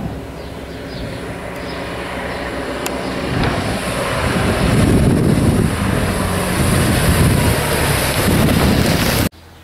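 Race commissaire's motorcycle engine running as the bike climbs toward and passes close by, growing louder to a peak about five seconds in. The sound cuts off suddenly near the end.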